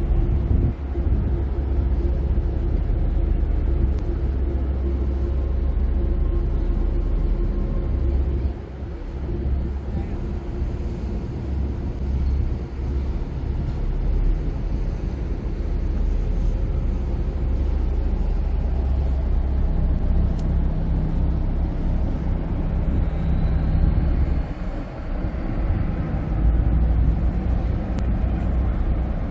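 Harbour ferry's diesel engines and hull rumbling steadily underway, a deep drone with a steady hum over it. It eases off briefly about eight seconds in and again near twenty-five seconds, then comes back stronger as the ferry manoeuvres in to the wharf.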